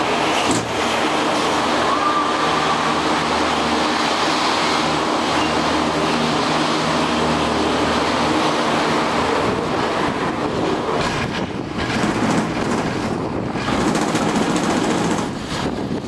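Gondola cabin running through the station machinery, a steady mechanical rumble with a low hum. About ten seconds in it gives way to rougher, gusty noise as the cabin swings out onto the open cable.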